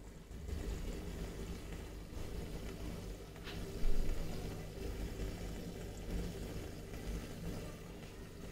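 Aquarium air stone bubbling steadily, with the low hum of the tank's pump and filter running underneath. A single brief knock about four seconds in.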